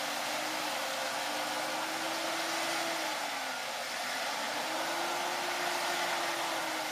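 Electric winch on the front of an off-road SUV running steadily as it hauls the vehicle on its line, with a motor whine whose pitch sags about halfway through and then climbs back as it labours under the load.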